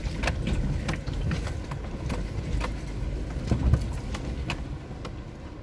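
Suzuki Jimny crawling down a steep rocky track, heard from inside the cabin: a low vehicle rumble with irregular knocks and clicks from the tyres going over loose rock and the body and contents rattling.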